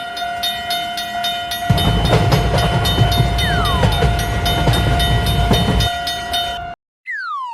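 Cartoon train sound effect: a long, steady horn-like tone over a fast, even ticking, with the heavy rumble of a train passing through the middle. Everything cuts off suddenly, and a falling whistle glide begins near the end.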